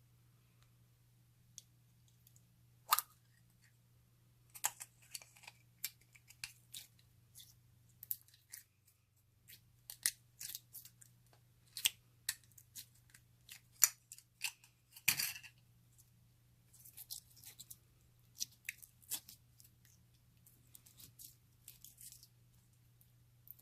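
Slime being squished and worked by hand, giving irregular sticky clicks and crackling pops, with a louder pop about three seconds in and again near the middle.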